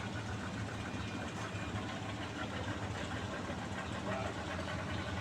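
An engine running steadily: a low hum that holds one pitch throughout.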